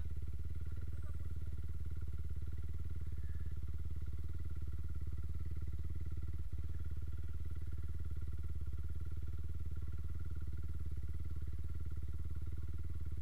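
Motorcycle engine running at a steady speed, a constant low drone that neither rises nor falls.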